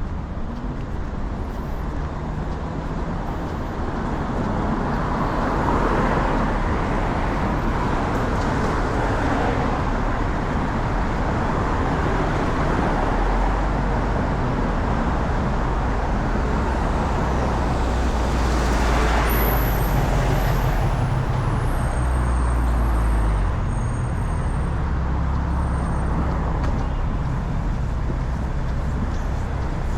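Road traffic passing: a steady rush of tyres and engines with a low rumble, swelling as vehicles go by about six seconds in and again near twenty seconds.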